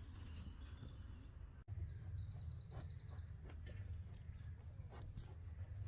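Faint outdoor ambience with a steady low rumble; a bird gives a short, quick high trill about two seconds in.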